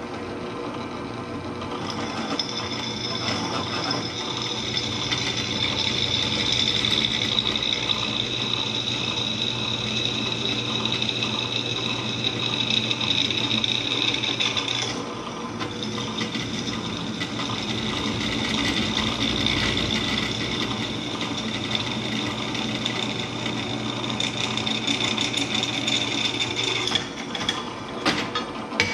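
Drill press running, its bit cutting into steel tubing with a steady high whine over the motor's hum. The cutting eases briefly about halfway through, then resumes and stops near the end.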